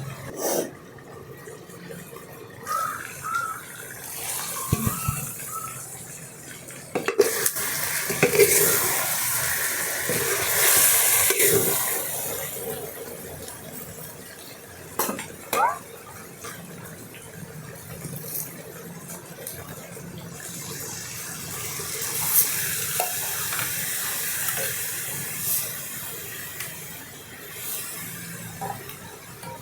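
A spoon stirring and scraping in a cooking pot, with clinks of utensils and two longer spells of sizzling as spiced curry masala fries.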